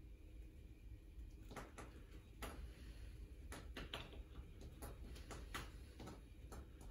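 Faint, irregular small clicks and ticks of hemp thread being wound by hand onto a bagpipe bass drone reed.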